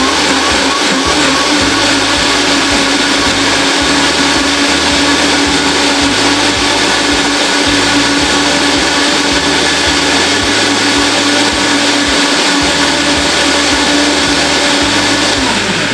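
High-powered countertop blender running steadily at medium speed, blending a liquid mix of milk, fried onion and yellow chili peppers. Its motor pitch drops as it winds down and stops at the very end.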